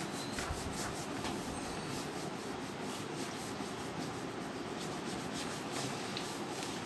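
Whiteboard being wiped clean by hand, a steady scratchy rubbing made up of repeated wiping strokes.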